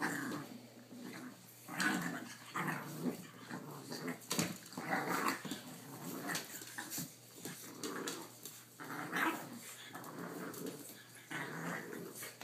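Boston Terriers, an adult dog and his puppies, play-growling at each other in repeated short bursts, with a few sharp clicks among them.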